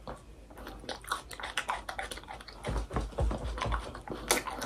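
A person chewing a mouthful of raw onion: irregular, crunchy chewing, with a few low thumps about three seconds in.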